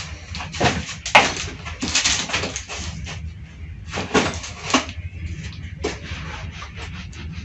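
Irregular knocks and rustling over a steady low hum.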